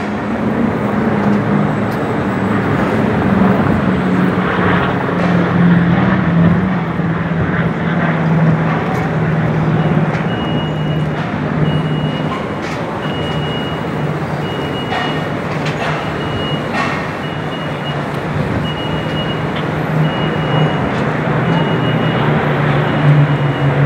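Steady urban traffic noise with a low engine hum, and from about ten seconds in a vehicle's reversing alarm beeping about once a second.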